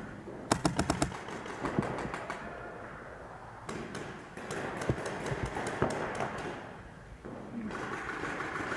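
Paintball markers firing: a rapid string of about six shots about half a second in, then scattered single shots a few seconds later.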